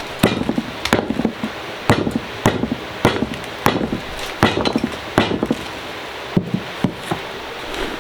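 Lumps of dried clay being pounded to break them up for slaking and recycling: a steady run of sharp blows, a little under two a second, each with the crunch of clay cracking apart.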